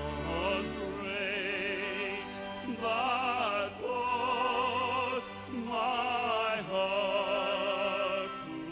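Classical operatic singing: a solo voice holds a phrase of long notes with strong vibrato, with soft accompaniment underneath.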